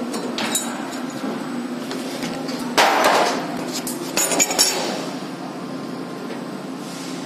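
Metal clinks and knocks as parts and a caliper are handled against the steel slats of a fiber laser cutter's bed, over a steady low machine hum. The loudest knock comes about three seconds in, followed by a quick cluster of clinks a second or so later.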